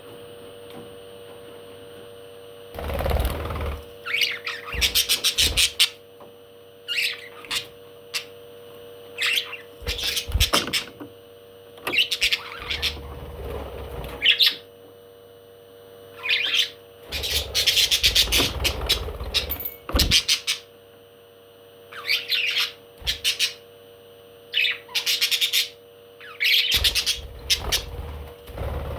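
Parrot calling in short bursts of rapid, high-pitched chirps and squawks, a dozen or so bursts separated by brief pauses, over a steady faint hum.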